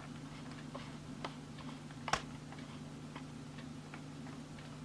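Faint, unevenly spaced clicks and taps of a small plastic Bluetooth keyboard being handled and switched on, with one sharper click about two seconds in, over a low steady hum.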